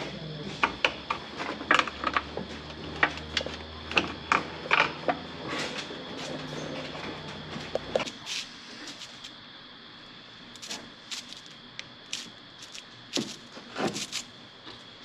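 Irregular metallic clicks and knocks of hand tools working under a car's dashboard, over a low steady hum. About eight seconds in it gives way to sparse, light taps and clicks at a workbench.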